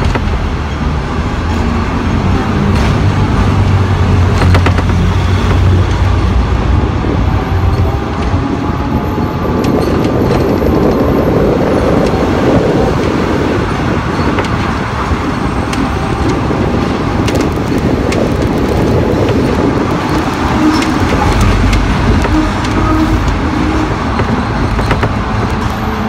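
Hong Kong double-deck electric tram running along its street track, heard from inside: a steady rumble of steel wheels on the rails over a low motor hum. The hum is strongest in the first few seconds, the rumble swells around the middle, and a few sharp clicks stand out.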